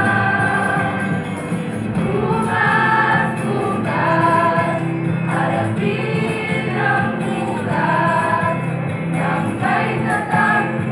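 A group of high-school students singing a jingle in chorus, in phrases a few seconds long, over sustained low notes.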